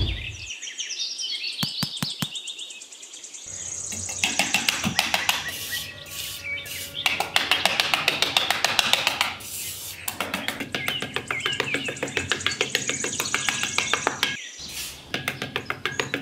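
Small metal hand trowel scraping and digging in sand in quick repeated strokes, about five a second, with a brief break near the end. Birds chirp over it.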